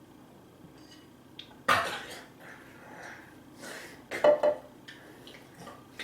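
Tableware clattering at a meal: two loud knocks of dishes and utensils, one just under two seconds in and one past four seconds, the second ringing briefly, with lighter clinks between.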